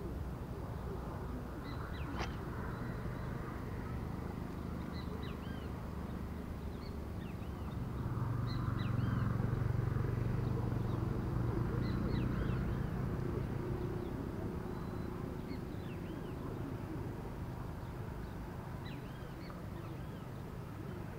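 Birds calling: many short, repeated chirps over a steady low rumble that swells for a few seconds in the middle.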